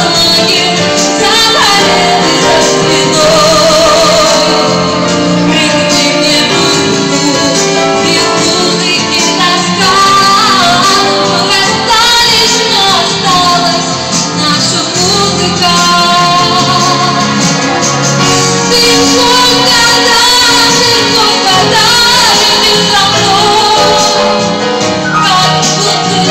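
A woman singing live into a handheld microphone through a PA, accompanied by an electronic keyboard. The music plays loudly and without a break.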